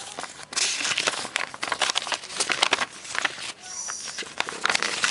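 Crinkling and rustling of toy packaging handled by hand, with many small clicks, in irregular bursts that pause briefly about half a second in and again between three and a half and four seconds in.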